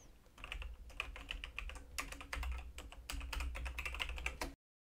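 Fast typing on a computer keyboard, a quick run of keystrokes that cuts off suddenly near the end.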